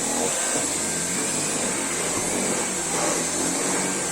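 Dyson V8 Animal cordless stick vacuum running at max suction: a steady high-pitched motor whine over a rush of air.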